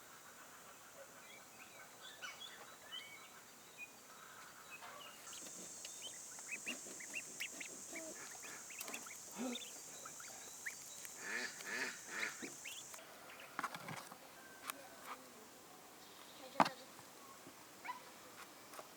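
Poultry calling in short, scattered calls, with a steady high hiss from about five to thirteen seconds in.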